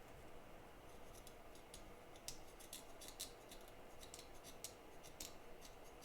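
Faint, irregular small clicks and scrapes of a fine metal tool working on a circuit board chip, coming closer together from about two seconds in.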